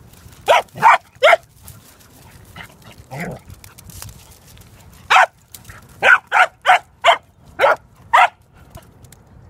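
A dog barking in short, sharp barks while two dogs play: three barks near the start, then a quick run of about seven more from about five seconds in.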